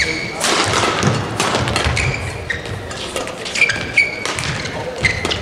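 Badminton doubles rally: rackets striking the shuttlecock in a quick exchange of sharp hits about once a second, with short high squeaks of players' shoes on the court mat between them.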